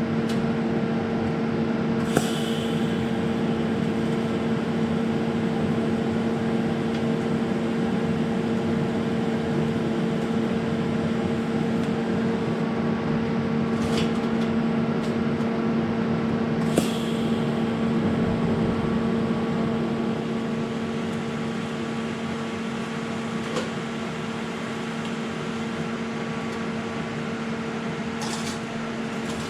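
A steady electric machine hum with a constant tone, broken by a few brief clicks, getting slightly quieter about two-thirds of the way through.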